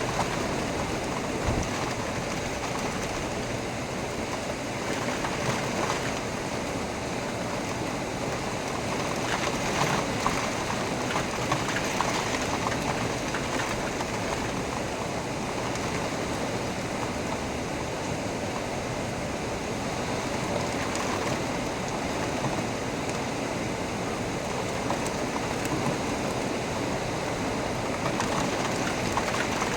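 Heavy rain falling steadily, an even, dense hiss with scattered drips and splashes.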